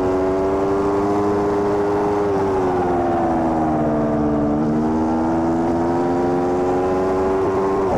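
Aprilia Tuono V4 Factory's V4 engine and exhaust heard close to the silencer while riding: a steady engine note that drops in pitch about two seconds in, then climbs slowly back up.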